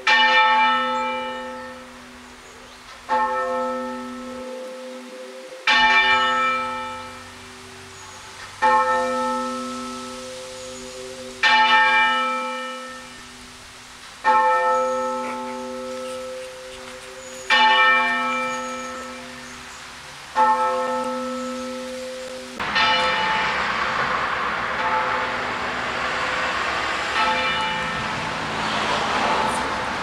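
A single church bell tolling half-muffled: about one stroke every three seconds, with every other stroke duller and softer. Each stroke rings on and dies away. Near the end a steady rushing noise rises over the tolling, which goes on fainter beneath it.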